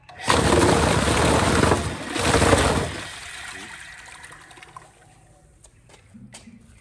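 Restored stirring machine switched on: a loud rushing churn starts suddenly, surges twice over about three seconds, then dies away.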